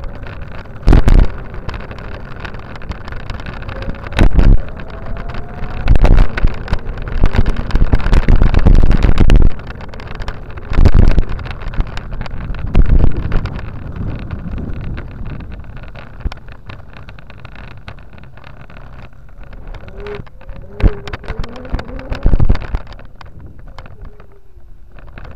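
Wind buffeting the microphone of a camera moving along a path, with several loud rumbling gusts that overload the recording in the first half, easing off in the second half as it slows to a stop.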